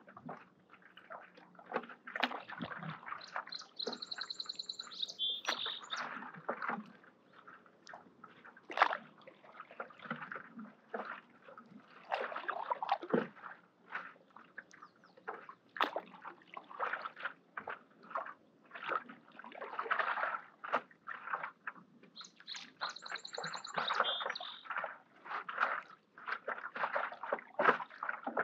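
Stand-up paddle blade dipping and pulling through lake water in irregular strokes, with splashing, sloshing and dripping. A bird gives a short high call twice, about twenty seconds apart.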